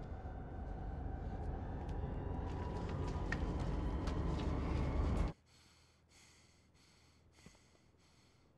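Low rumbling noise building steadily louder, then cut off suddenly about five seconds in. After it, faint quiet with soft regular pulses about twice a second.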